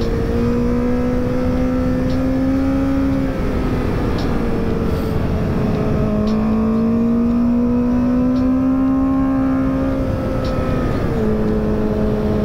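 Honda CBR1000RR Fireblade's inline-four engine pulling through curves, its pitch slowly rising, easing off about three seconds in, climbing again and dropping near the end, under steady wind and road noise.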